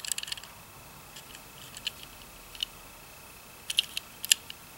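Light, scattered clicks and ticks of a small die-cast toy car being turned over in the fingers, a quick cluster just at the start and a few more near the end.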